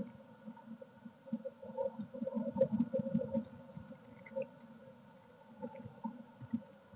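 Blue tit shuffling and scratching about inside a wooden nest box, irregular scrabbling and soft knocks, busiest around the middle, over a faint steady hum.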